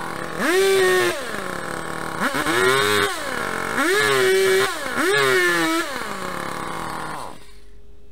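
ECHO two-stroke chainsaw revved four times as it bites into a tree stump, each rev rising, held briefly and dropping back to idle, then the engine cuts off near the end. The chain cuts very poorly, scorching the wood.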